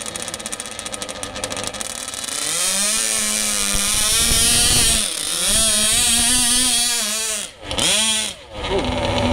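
Small model engines of a radio-controlled pulling tractor, first ticking over fast at idle, then revving up about two seconds in and running at high revs as it pulls the weight sled. The revs dip briefly once midway and twice more sharply near the end.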